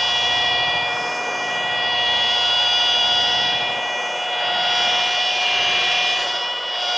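Cordless Milwaukee polisher with a wool buffing pad running steadily, a high motor whine that swells and eases a little as the pad is worked across the paint. It is cutting compound into wet-sanded black paint to take out the sanding scratches.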